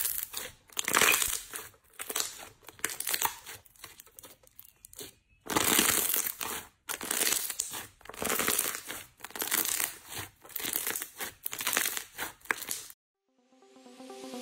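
Hands squeezing, stretching and pressing clear slime, making a run of short squishes and crackles, several close together in places. The squishing stops about a second before the end, when electronic music starts to fade in.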